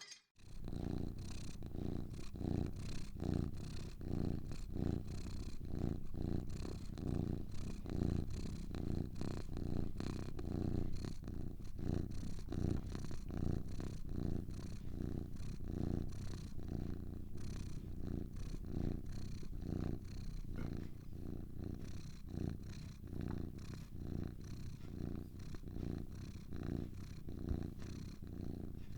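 Domestic cat purring steadily and close, a low rapid rumble that pulses with each breath in and out.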